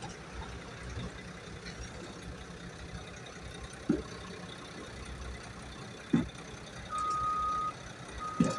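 A construction vehicle's reversing alarm starts beeping near the end, a single tone about once a second, over a low engine rumble. Three short, loud thumps come about two seconds apart.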